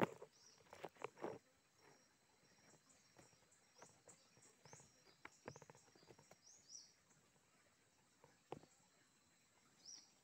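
A few soft knocks and rustles from sticks being handled while a snare trap is set, the loudest right at the start. Behind them a bird gives a run of faint, short, high rising chirps over the first seven seconds and once more near the end.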